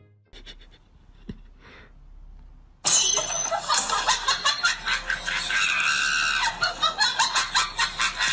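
A person's loud, shrieking laughter in rapid pulses, starting suddenly about three seconds in after a few seconds of faint sound.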